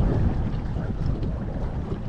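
Wind buffeting the microphone on an open boat: an uneven low rumble, strongest at the start and easing slightly.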